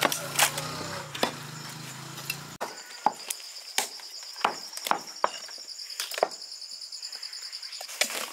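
Cleaver chopping mutton and bone on a wooden chopping block: sharp separate chops at an uneven pace, about one or two a second. A high steady trill comes in about a third of the way through.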